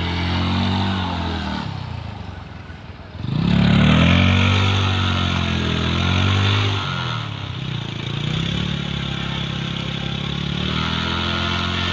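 TVS Apache RTR motorcycle's single-cylinder engine revving hard in a stationary burnout, its rear wheel spinning in loose sand. The revs rise and fall in waves; about two seconds in they sag for a moment, then climb back sharply to the loudest part.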